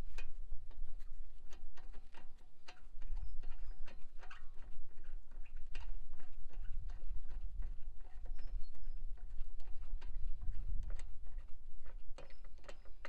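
Irregular light clicks and knocks, several a second, over a low rumble.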